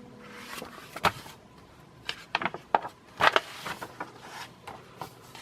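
Pages of a paper catalog being handled and turned: a string of irregular crisp rustles and sharp snaps, the loudest about a second in and around three seconds in.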